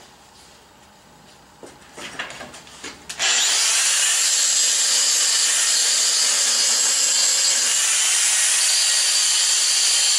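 A few handling clatters, then an electric angle grinder starts about three seconds in and grinds metal steadily, throwing sparks for a spark test. It is a loud, continuous, hissing grind.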